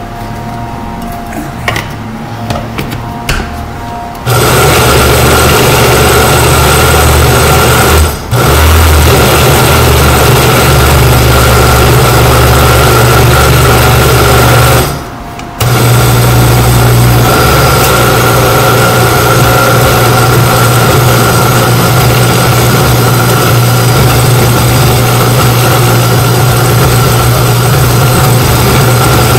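Countertop blender motor running loud and steady, chopping a load of onions, peppers and cilantro for sofrito. It starts about four seconds in, cuts out for a moment twice, and starts again each time.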